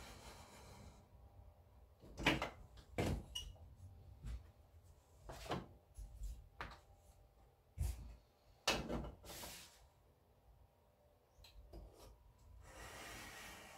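Mat board being worked on a mat cutter: a series of knocks and thumps as the board is shifted and set under the cutter's rail, then near the end a steady scraping hiss as the cutting head is drawn along the rail, its blade cutting through the mat board.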